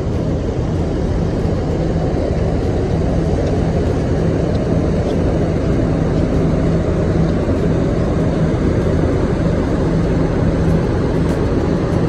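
Diesel engine of a double-decker coach running at low speed as it pulls slowly across the terminal lot, a steady low drone.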